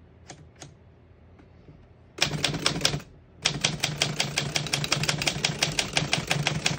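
1938 Woodstock manual desktop typewriter being typed on: after a few faint clicks, a short burst of keystrokes about two seconds in, a brief pause, then a fast even run of type bars striking the platen, about ten a second. The keys strike cleanly, none skipping or sticking.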